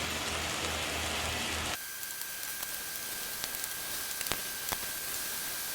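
Lean ground beef frying in a hot cast iron skillet: a steady sizzle that drops suddenly in level about two seconds in, then carries on quieter with a few sharp pops.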